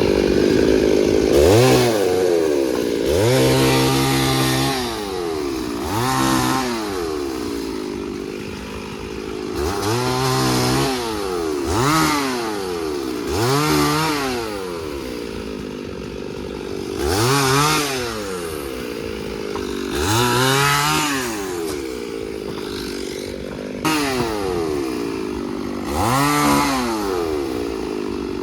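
Two-stroke chainsaw revving up and falling back again and again, about a dozen rises and falls, each lasting a second or so, over a steady engine drone.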